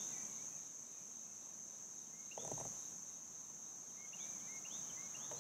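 Crickets and other insects giving a steady, high-pitched drone, with a few short chirping notes about two seconds in and a quick run of them near the end. A brief rustle about two and a half seconds in.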